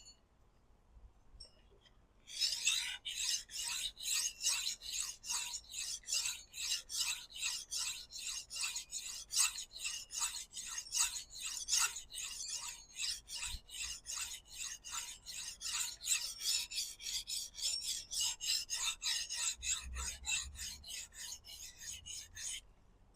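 A 400-grit diamond sharpening stone is stroked back and forth along a chef's knife edge in a guided sharpener. It makes an even run of rasping scrapes, about two to three strokes a second, starting about two seconds in and stopping shortly before the end. The strokes are raising a burr on the second side of the edge.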